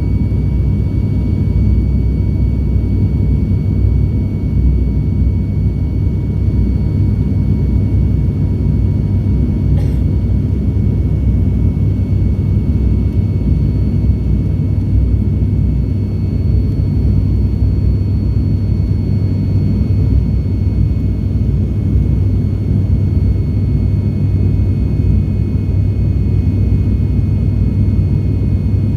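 Steady, loud low rumble of an ATR72-600's twin turboprop engines and propellers heard inside the passenger cabin, with a few constant high-pitched tones over it, as the aircraft flies its landing approach.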